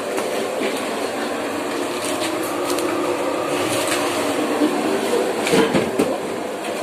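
Steady kitchen background noise, a hiss with a faint low hum, broken by a few sharp clicks a little over five seconds in.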